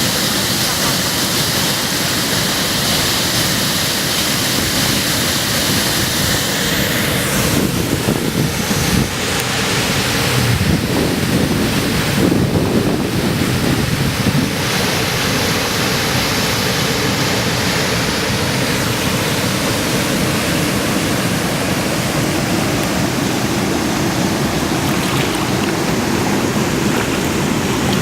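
Kivach waterfall's water rushing steadily and loudly over the rocks.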